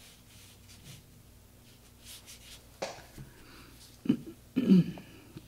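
Faint scratching of a brush stroking over watercolour paper, with a click nearly three seconds in and two short, louder handling noises near the end.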